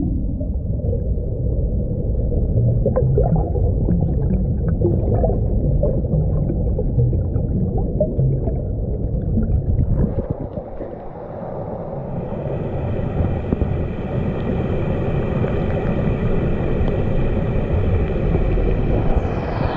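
Muffled rumble and gurgling of river water heard through a submerged camera. About twelve seconds in, a set of steady high tones joins it, ending in a falling glide near the end.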